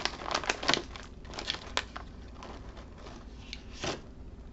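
Plastic snack bag crinkling as it is opened and a hand reaches inside: a dense run of sharp crackles over the first two seconds, then a few scattered rustles with one louder crackle near the end.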